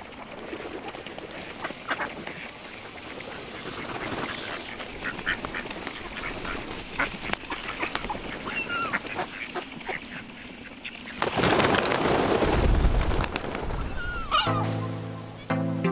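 A flock of geese calling and honking. About two-thirds in, a loud rush of wingbeats comes as the flock takes off from the water. Soft music begins near the end.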